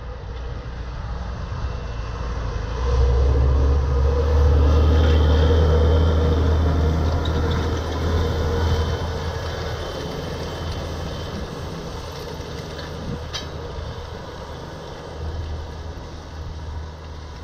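Fendt 930 tractor's six-cylinder diesel engine running under load as it pulls a Väderstad Spirit 600C seed drill past: a steady low drone that swells about three seconds in, is loudest for the next few seconds as it goes by close, then fades as it moves away.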